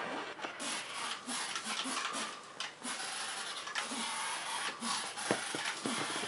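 Rustling and rubbing of a remote-controlled inflatable flying shark's shiny balloon skin close to the microphone, a scratchy noise broken by irregular small clicks.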